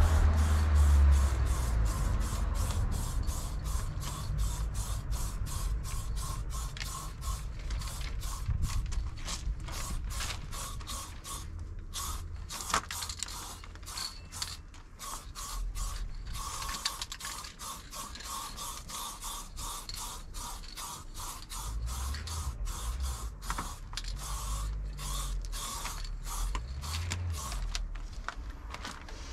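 Rapid, even mechanical clicking or rattling, several clicks a second, with brief pauses about twelve and sixteen seconds in.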